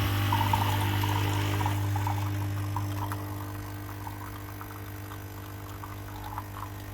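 Nespresso Creatista Plus capsule machine brewing an espresso shot: the pump hums steadily while coffee streams into a cup of milk and ice. The sound eases off about halfway through.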